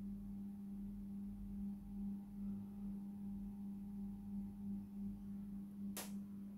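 A steady low-pitched hum with faint higher overtones, gently pulsing in level, and a single sharp click about six seconds in.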